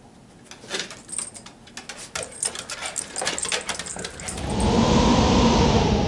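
A dog rooting in a cardboard box: a quick run of clicks, scratches and rustles. About four and a half seconds in, a loud whooshing sound effect with a falling tone swells up and drowns it out.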